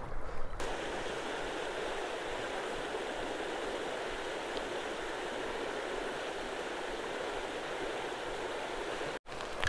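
Steady rush of flowing water from a stream or river, cut off abruptly near the end.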